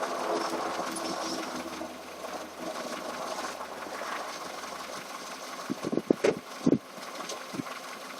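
Car engine running steadily at idle. A few muffled thumps come in during the last couple of seconds.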